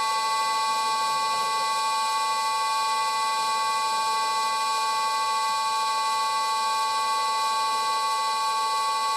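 Old Karger metal lathe running at a steady low speed while a tool bit takes a light facing cut on the end of a bar: a continuous even whine made of two strong steady tones, with no change in speed.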